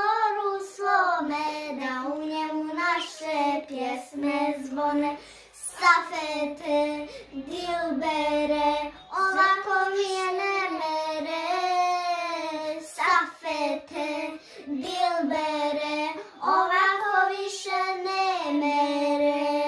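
Two young girls singing a Bosnian sevdalinka together in phrases of a couple of seconds, with long held notes.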